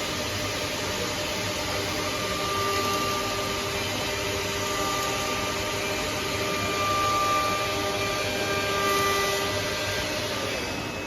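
Servo-driven mica pattern-cutting machine running: a steady hiss of air, with whining tones that start and stop every couple of seconds as the cutting head moves.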